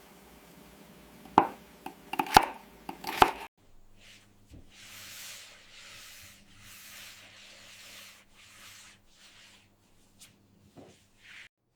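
A few sharp knocks on a hard surface, then soft rubbing and swishing sounds over a faint low hum, with a couple of light ticks near the end.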